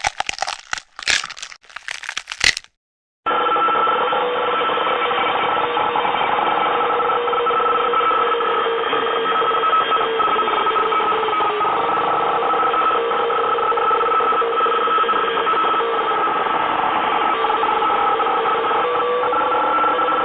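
Sound effects: a few sharp, crashing bursts of noise, then after a brief gap a steady, unbroken ringing sound that holds a fixed set of tones for about eighteen seconds.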